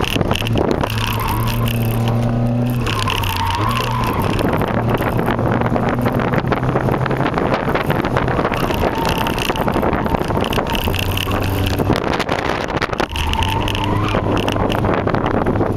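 A 1992 Toyota Camry LE, with a cold-air intake and aftermarket muffler, driven hard through an autocross course, heard from inside the cabin. The engine note rises and falls as the driver accelerates and lifts, and the tires squeal through the turns several times: about the first second, around 3 to 4 seconds in, and again near the end.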